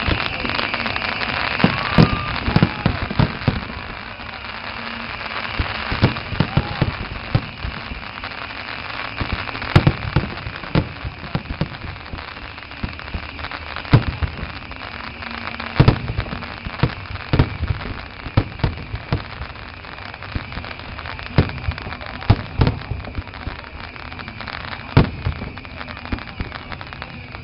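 Aerial fireworks shells bursting overhead in a long, irregular barrage of loud booms, several close together at times, over a steady hiss.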